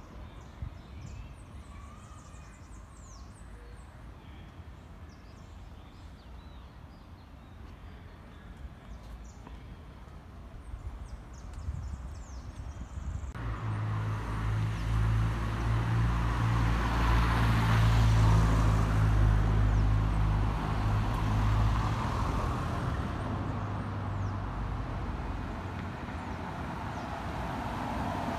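Faint bird chirps over quiet street ambience. About halfway through, a motor vehicle's engine hum grows louder, peaks and fades as the vehicle drives past.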